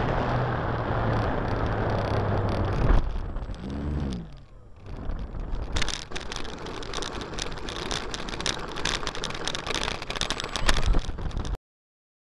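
ParkZone T-28 RC plane's electric motor and propeller whirring with wind rush, then a sharp knock about three seconds in as the plane crashes, and the motor spinning down with a falling pitch. After a short lull comes a stretch of dense rattling and clicking, which cuts off suddenly near the end.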